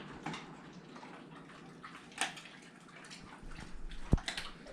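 Rottweiler eating broth-soaked food from a bowl: wet lapping and chewing, with a few sharp clicks, the loudest a knock just past four seconds in.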